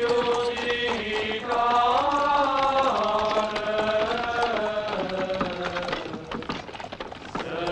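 Voices chanting slowly in harmony, each note held for a second or more before stepping to the next, like a funeral chant.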